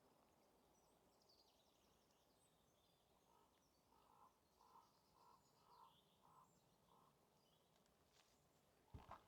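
Faint forest ambience with distant birds: high warbling chirps early on, then a short repeated call note about twice a second for several seconds. A single footstep thump near the end.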